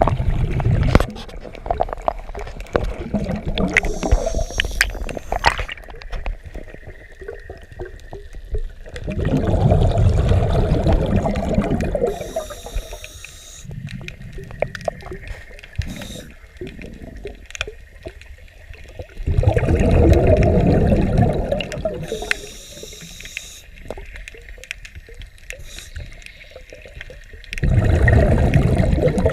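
A diver breathing through a regulator underwater: a short hiss on each inhalation, then a loud burst of exhaled bubbles rumbling for two or three seconds, about every ten seconds. Faint clicks and scraping come in between.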